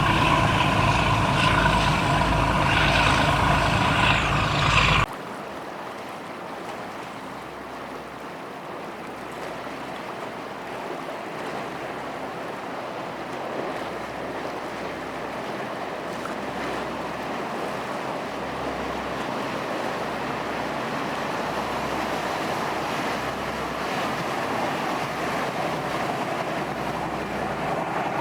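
Patrol boat's engine running loud and close with steady tones, cut off abruptly about five seconds in. Then an even wash of water and wind that slowly grows louder.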